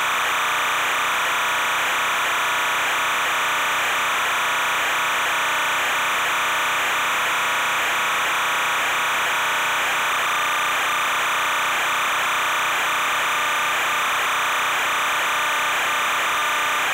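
A steady hiss with no change in level and almost no low end, the static of the survey video's audio track.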